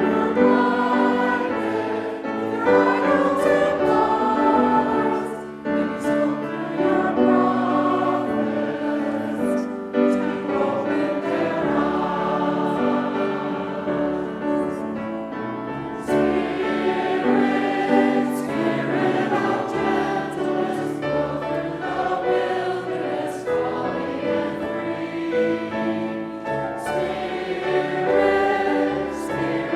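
Many voices singing together in chorus, holding notes as the melody moves.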